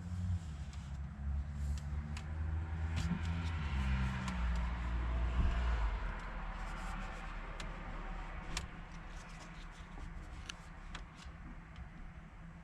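A low rumble, heaviest in the first half and easing after about six seconds, with scattered light clicks and rubbing from hands working at close range.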